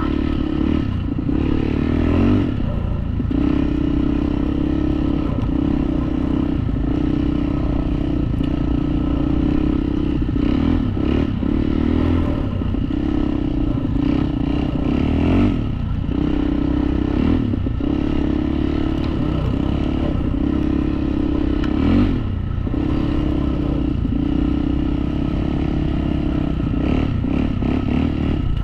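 ATV engine running under way on a snowy trail, its note dipping briefly every few seconds as the throttle eases and comes back, with clattering from the machine.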